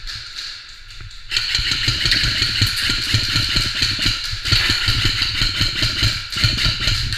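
Airsoft electric rifles firing long full-auto bursts, a fast run of clattering shots that starts suddenly about a second in and keeps going with two short breaks.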